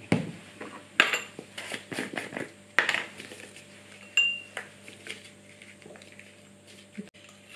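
A plastic reagent bottle is uncapped and handled, then a metal spatula scoops sodium bicarbonate powder into a small glass beaker: a string of knocks and clicks, with one short ringing clink of metal on glass about four seconds in.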